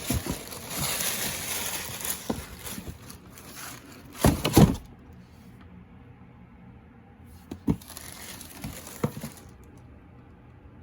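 Box and paper packaging handled by hand: rustling for the first few seconds, a couple of loud knocks about four seconds in, then a few lighter knocks.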